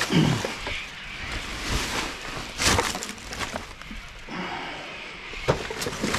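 Rubbish being rummaged through in a dumpster: rustling and shifting, with scattered sharp knocks. The sharpest come right at the start, a little under halfway and near the end.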